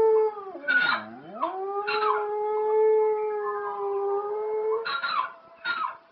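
Dog howling: one long howl that dips low in pitch about a second in, climbs back and holds steady, then breaks into shorter cries near the end.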